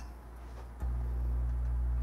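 An electric appliance switched on about a second in, running with a steady low hum.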